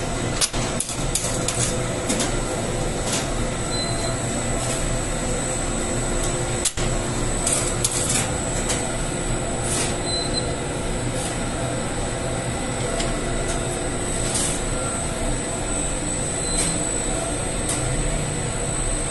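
Steady mechanical noise of bakery machinery running, a rotating bread oven and a dough sheeter, with a thin high whine and scattered light clicks and taps of dough handling.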